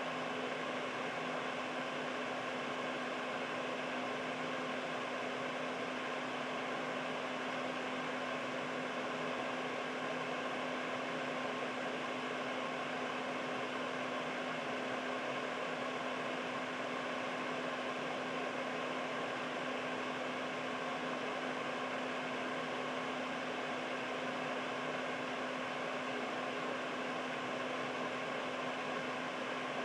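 Air purifier's fan running steadily: an even rush of air with a constant low hum underneath.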